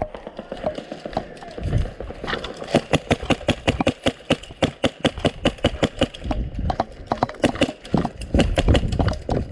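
Footsteps of a player running over ground, a quick regular beat of steps that starts about two seconds in.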